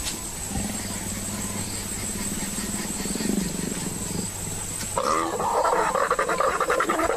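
Leopards growling during mating: a low, steady growl, then about five seconds in a louder, harsh, pulsing snarl that lasts about two seconds.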